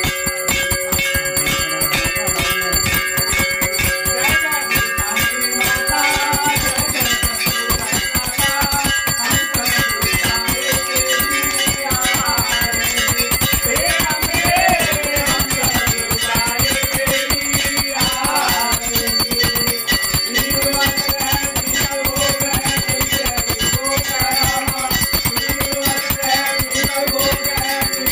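Temple bells rung rapidly and without pause for the aarti lamp offering, a dense, continuous metallic ringing. A wavering melody joins in from about six seconds in.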